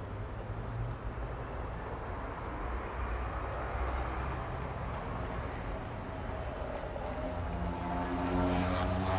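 High-street traffic ambience: a steady wash of passing vehicles with low rumble. Near the end a vehicle's engine drone with a pitched hum grows louder as it approaches.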